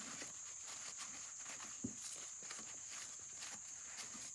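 Faint rubbing and handling sounds of a rag wiping a brass part of a phonograph motor, with one light knock about two seconds in, over a steady high-pitched hiss.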